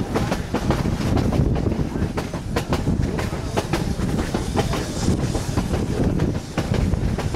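Narrow-gauge passenger train coach rolling along the track, heard from beside the car. Its wheels click irregularly over the rail joints above a steady low rumble.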